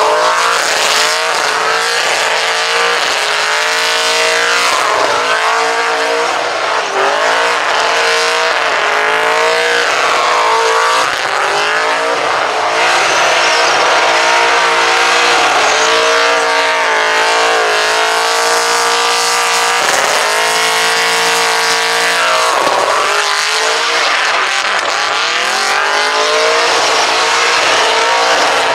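LS1 5.7-litre V8 in a VP Holden Commodore held at high revs in a burnout, the rear tyres spinning and squealing. The engine pitch dips and climbs back several times as the throttle is worked.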